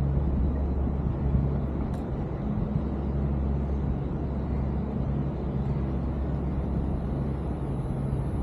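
Steady low rumble of road traffic with a faint hum, and a single click about two seconds in.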